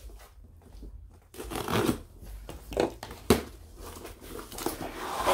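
Cardboard shipping box being handled and opened: scraping and rustling of cardboard in short bursts, with one sharp knock a little past the middle.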